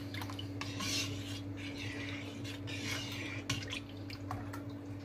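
A plastic spoon stirring and scooping hot coconut milk mixture in a nonstick wok, with liquid pouring and dripping back off the spoon in soft swishes and a few light clicks against the pan. A steady low hum runs underneath.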